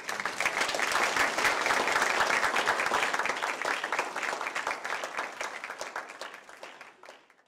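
Audience applauding, many hands clapping together. It starts at once, holds strongest for the first few seconds, then tapers off and dies away near the end.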